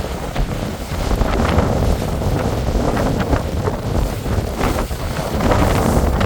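Strong gusty wind buffeting the microphone in a loud low rumble, with waves slapping and splashing on the wind-whipped lake.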